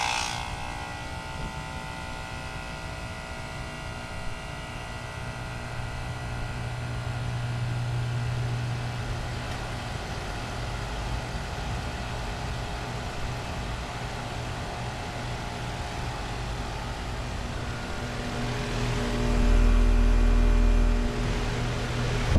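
New Carrier heat pump outdoor units running just after startup, the compressor humming steadily over several steady tones. The hum grows stronger a few seconds in, and a louder low rumble comes in briefly near the end.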